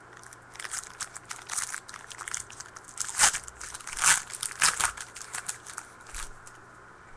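Foil wrapper of a trading-card pack crinkling as it is torn open and handled: a quick run of crackles, loudest about three and four seconds in.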